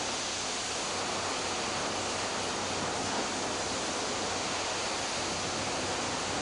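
Steady rushing noise of wind and rough sea, unchanging throughout, with a faint low hum underneath.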